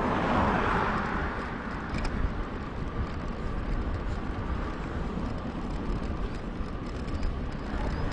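Wind rushing over a GoPro microphone and bicycle tyres rolling on pavement during a ride, sped up 2.5 times, giving a steady low rumble with a slightly louder swell in the first second.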